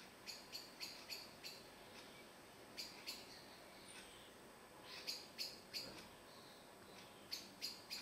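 Spotted flycatcher giving short, sharp, high calls in quick runs of two to five, about three a second, with pauses between the runs.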